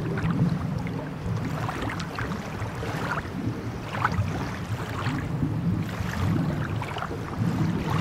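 Sea ambience: a steady low rumble of waves, with water washing and splashing at irregular moments.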